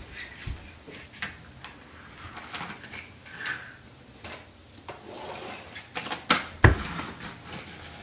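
A fold-up toy barn box being folded shut and handled: scattered scrapes, rustles and small knocks, with one sharper thump late on.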